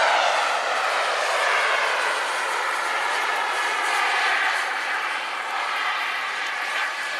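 Small turbine engine of a radio-controlled Boomerang Nano jet in flight. Its high whine falls in pitch over the first couple of seconds as it passes, then holds steadier and slowly fades.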